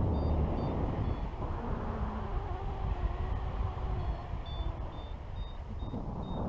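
Wind rushing over the camera microphone in paraglider flight, with a flight variometer's short high beeps, which signal rising air. The beeps come briefly at the start and again in quick succession from about four seconds in, while the wind noise eases somewhat in the middle.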